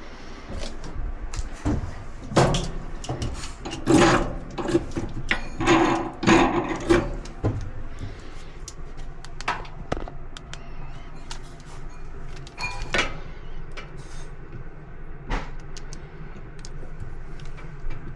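Irregular clicks, knocks and clatter of dryer panels, parts and tools being handled during disassembly, with a busier run of louder knocks from about two to seven seconds in.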